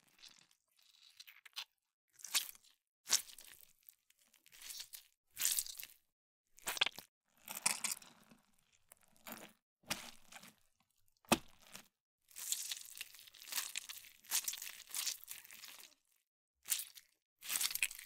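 A series of separate wet squelches, about a dozen short ones with silent gaps between them, plus a longer run of squelching a little past halfway.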